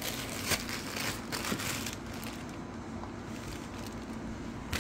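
Clear plastic bag crinkling and rustling as a subwoofer is worked out of it, busiest in the first second and a half, over a low steady hum.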